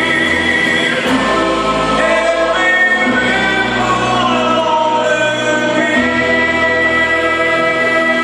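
Music with choral singing over held chords that change every few seconds.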